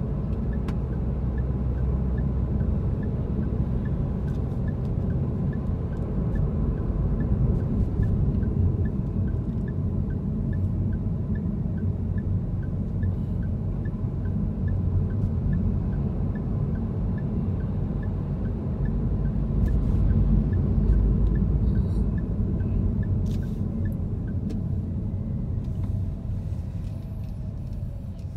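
Car driving, heard from inside the cabin: a steady low rumble of engine and tyres, easing off near the end as the car slows for a stop. A faint regular ticking, about one and a half a second, runs through most of it.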